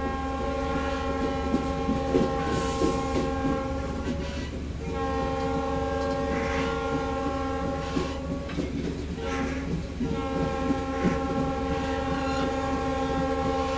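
Locomotive air horn sounding a steady chord of several notes in long blasts, breaking briefly about four and a half seconds in and again near ten seconds. Under it run a train's low rumble and the clack of wheels on rail joints.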